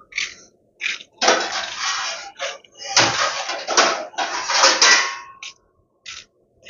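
Kitchen knife cutting a tomato held in the hand over a plate: a series of short cutting and scraping noises, two of them running on for a second or more.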